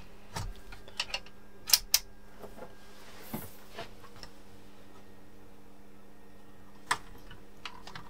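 A few sharp clicks and light knocks, mostly in the first two seconds with the loudest pair close together, then one more near the end, as an HP 34401A bench multimeter is handled and its input switched over to the rear terminals. A faint steady hum lies underneath.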